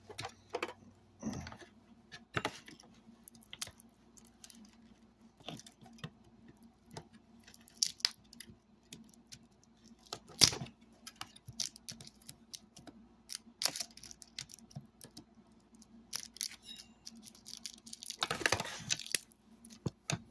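Hand tools working on a stripped-down speaker: irregular clicks, clinks and scrapes of metal, with one louder knock about halfway through and a longer stretch of scraping near the end.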